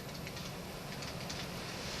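Train running and slowly growing louder, a steady rumble with scattered high clicks and hiss.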